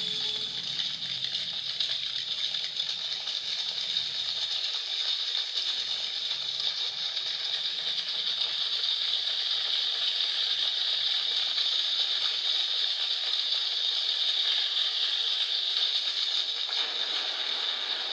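Rain sound made with fingers: a steady, dense patter and hiss like falling rain, growing a little louder toward the end.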